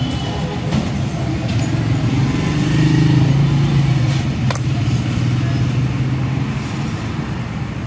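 A motor vehicle's engine running, a low steady hum that grows louder about two seconds in and eases off after about six seconds. A single sharp tap sounds about four and a half seconds in.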